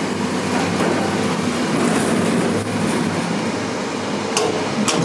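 Dover hydraulic elevator running with a steady mechanical hum and rumble. Two sharp clicks come near the end.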